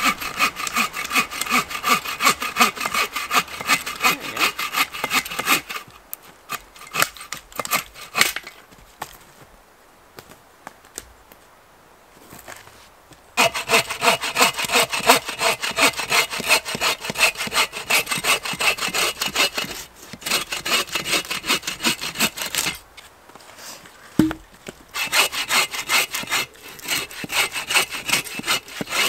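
Hand saw cutting through firewood in quick back-and-forth strokes, the blade ringing a little on each stroke. It saws in three bouts, breaking off for several seconds once and briefly a second time.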